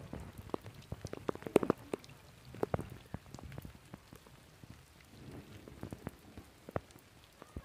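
Rain falling as scattered, irregular drops splashing onto wet ground and water, thicker in the first couple of seconds and sparser afterwards.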